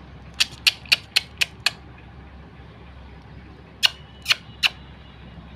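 Pet bird giving short, harsh squawking calls: a quick run of six, about four a second, then three more a little later.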